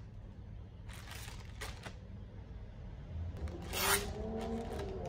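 Clear plastic poly bag crinkling in a few short bursts as hands handle and open it around a knit top, the loudest crinkle near the end. Soft held musical notes come in about two-thirds of the way through.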